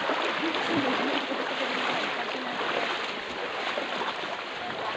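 Steady rush of river water.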